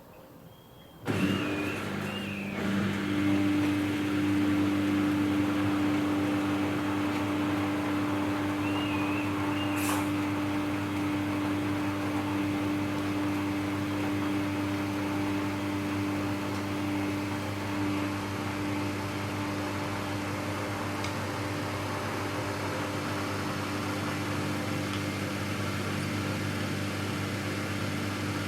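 Samsung EcoBubble front-load washing machine running mid-cycle. A steady mechanical hum starts suddenly about a second in and holds at an even pitch and level.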